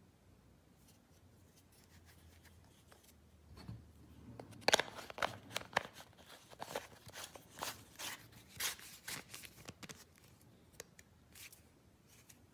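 Hard plastic sprinkler-head parts handled and screwed together, their threads and rims giving an irregular run of sharp clicks and scrapes. It starts about four seconds in, with one louder snap, and dies away after about five seconds.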